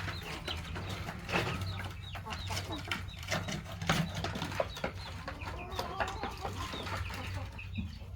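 Chickens clucking, among many short clicks and scuffing knocks.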